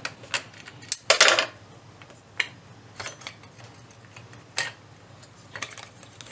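Light plastic and metal clicks and knocks as the plastic shroud over a turntable's tone-arm pivot is worked loose by hand and lifted off. There is a short clatter about a second in and a single sharper click later.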